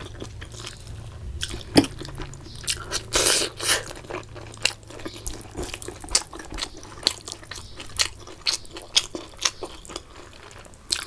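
Close-miked eating sounds: wet chewing and mouth smacks, with bare fingers squishing and mixing rice and curry. There are short clicks throughout and one sharp click a little under two seconds in.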